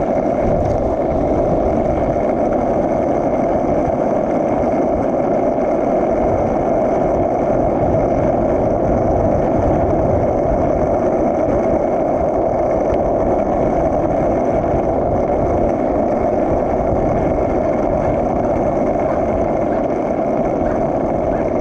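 Skateboard wheels rolling steadily down a long hill on rough concrete, a continuous even rumble, mixed with headwind buffeting the microphone.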